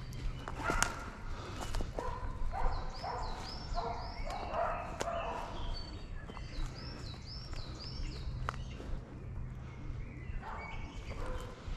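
Footsteps crunching and snapping through dry leaf litter and twigs on a woodland path, while a bird sings a short phrase of four looping whistled notes, twice.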